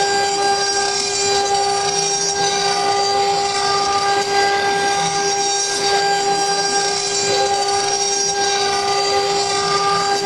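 CNC wood router's spindle running with a steady whine over a constant hiss.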